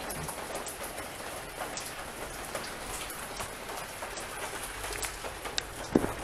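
Steady rain falling, with scattered drops ticking, and a single thump just before the end.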